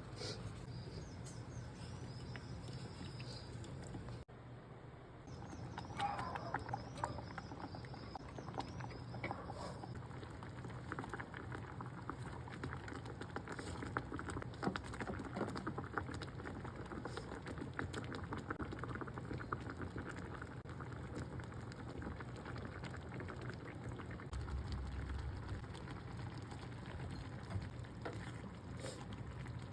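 Tteokbokki cooking in a pan: a steady, dense crackle of small pops and patters from the food and sauce over the heat. The sound cuts out briefly about four seconds in.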